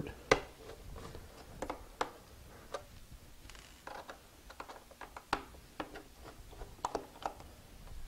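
Scattered light clicks and taps of small screws being worked out of a MacBook Pro's aluminium bottom case and handled, at irregular intervals.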